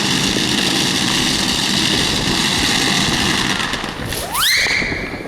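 Fireworks going off: a loud, steady, crackling hiss for about four seconds. Near the end a whistle rises sharply in pitch and holds a high note.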